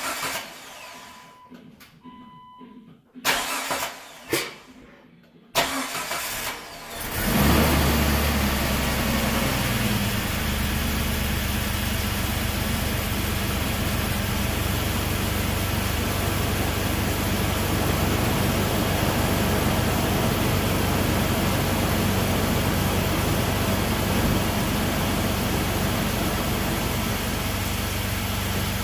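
Jeep 4.0 L straight-six cranked in a few short bursts to get oil circulating on its first start after a head gasket replacement. It catches about seven seconds in and then idles steadily.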